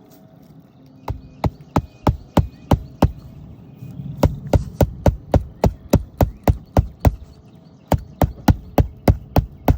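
Roofing hammer driving a nail into an asphalt shingle, striking about three times a second in three runs with short pauses between. The nail is not going in flush.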